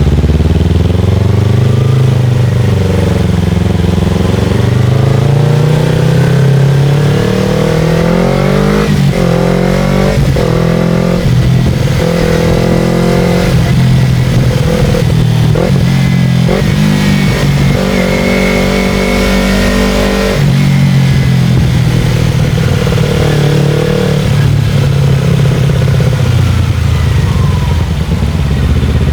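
Motorcycle engine on the move, climbing in pitch through a run of quick gear changes, holding steady, then dropping off about twenty seconds in as it eases off before picking up again.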